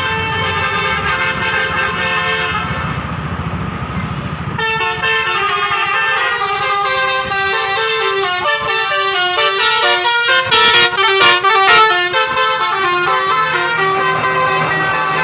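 Basuri telolet bus horn playing a melody. It opens with held tones, then runs quickly up and down through short notes, loudest and busiest about two-thirds of the way in, and settles back to held tones at the end.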